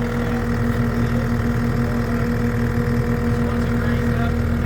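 Takeuchi compact track loader's diesel engine idling steadily, with a constant low rumble and hum.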